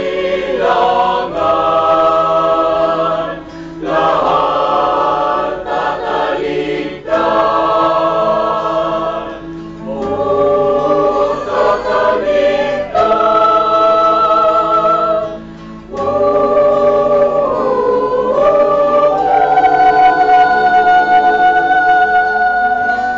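A small choir singing in harmony in phrases of held notes, ending on one long held chord that starts about four seconds before the end.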